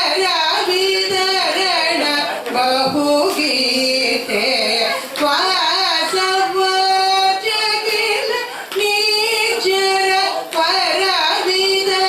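A woman singing a Hindu devotional song into a microphone, a continuous melodic line with short breaths between phrases.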